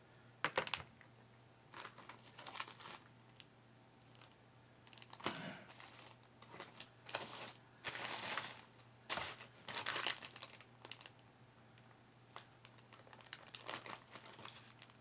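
Crinkling of packaging handled by hand in a small room, in irregular bursts with a few sharp clicks.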